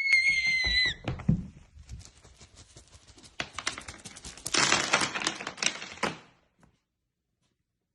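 A high, held scream cuts off about a second in. It is followed by a rapid clatter of light clicks and taps that thickens, then stops a little after six seconds.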